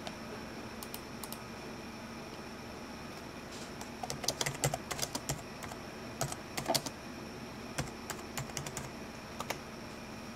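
Typing on a computer keyboard: irregular runs of keystrokes starting about four seconds in and stopping shortly before the end, over a faint steady room hum.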